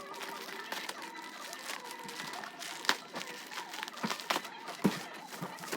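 Plastic packaging crinkling and rustling with scattered sharp clicks and crackles as a slime package is unwrapped and opened.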